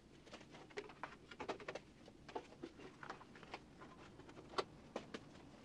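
Faint, scattered light taps and clicks, several a second at uneven spacing, like small objects being handled.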